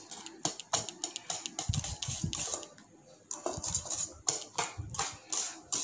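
Cake batter of creamed butter, sugar and eggs beaten by hand in a mixing bowl: a utensil clicking and knocking against the bowl in quick, irregular strokes, with a short lull about three seconds in.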